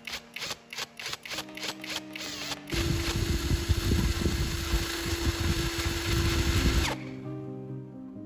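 A series of quick clicks or taps, then a small electric power tool running at a steady speed for about four seconds before it stops suddenly. Background music plays throughout.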